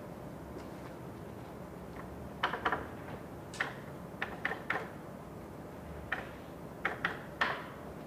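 Keys clicking on a computer terminal's keyboard as someone types a catalogue search, in irregular bursts of a few strokes over a steady low hum.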